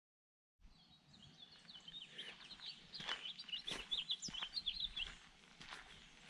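Small birds chirping outdoors: a quick string of short, high chirps for about four seconds, with a few faint clicks. The sound cuts in after a moment of dead silence.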